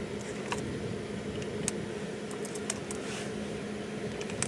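Cartridges being loaded into the swung-out cylinder of a Taurus M85 .38 Special snub-nose revolver: scattered light metallic clicks as rounds are pulled from a plastic tray and pushed into the chambers, over a steady low hum.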